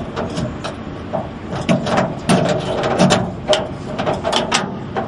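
A truck's driver-side door lock mechanism being worked inside the open door, giving a run of irregular metallic clicks and rattles as the lock and its lever rod are tested.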